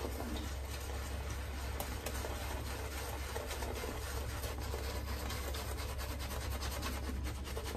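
Synthetic-knot shaving brush swirled back and forth over a lathered face, a steady wet rubbing with fine crackles as the bristles whip the hydrated soap into a working lather.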